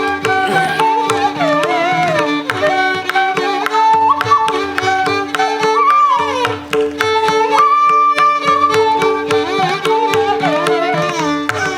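Carnatic instrumental music: a melody that glides and bends between notes over a steady held drone, with regular drum strokes.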